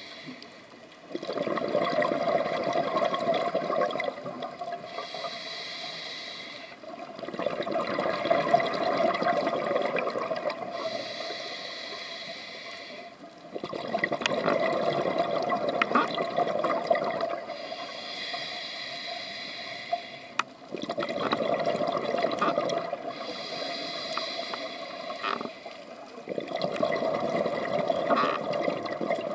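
A scuba diver's regulator breathing underwater: five long rushes of exhaled bubbles, alternating with the hissing draw of each inhalation.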